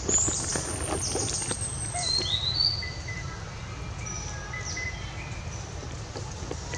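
Birds calling: a few thin, high whistled notes that slide in pitch, mostly in the first three seconds, with short fainter chirps later, over a steady low rumble and a few light taps.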